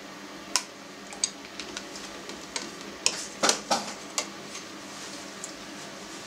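A handful of sharp clinks and knocks against a stainless steel pot, bunched in the middle, as poached sausages are lifted out of their hot water, over a faint steady background hum.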